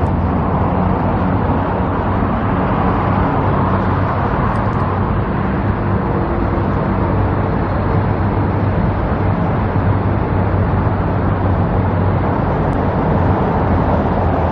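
Steady road traffic noise, with a low engine hum running under it.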